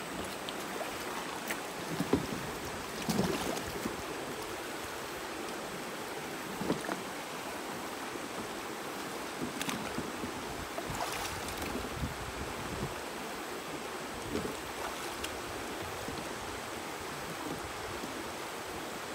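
Shallow river rushing steadily over rocks, with irregular splashes as a person wades through the water pushing a floating plastic cart, the loudest splashes a few seconds in.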